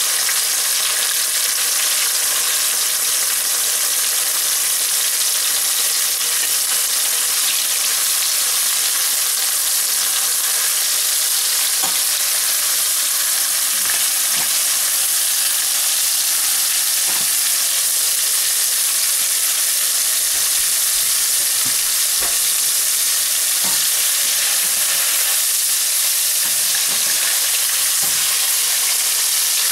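Small flour-coated fish deep-frying in a pot of hot oil: a steady, even sizzle, with a few faint clicks partway through.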